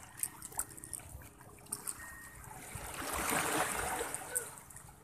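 Small waves lapping and splashing against a concrete seawall, with a louder surge of water washing over the edge about three seconds in.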